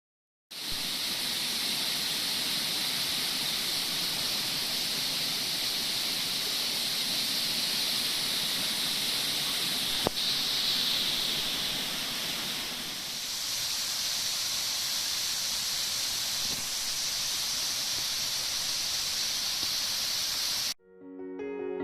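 Waterfall rushing steadily, with one short click about halfway through. The water sound cuts off near the end and music begins.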